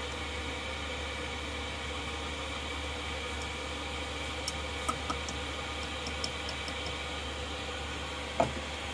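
Steady hiss with a low hum, a few faint ticks in the middle, and one hard knock near the end as the plastic measuring cup is set down on the wooden counter.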